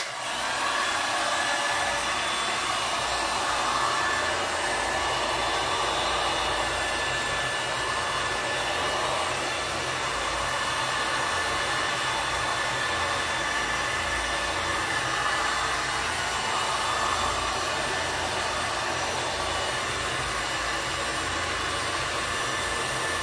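Electric heat gun switched on and running steadily, a continuous rush of hot air with a faint steady whine, blown onto cured epoxy resin around a floor drain cover to soften it.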